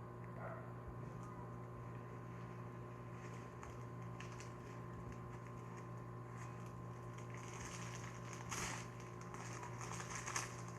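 Quiet room tone: a steady low hum with faint scattered clicks and taps, and a brief rustle near the end.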